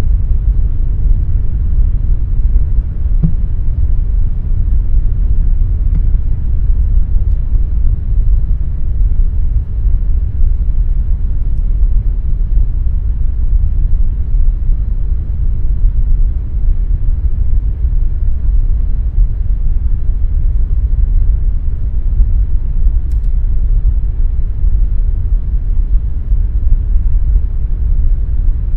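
Air conditioner running with a steady, deep rumbling whoosh, even and unchanging throughout.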